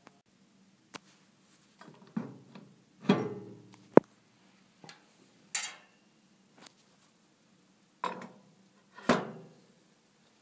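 Metal rollers of a roll laminator being taken off and pushed back into their end holders: a series of clunks and short scraping knocks, with a sharp click about four seconds in.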